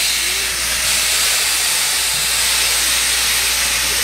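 Steam locomotive venting steam: a loud, steady hiss.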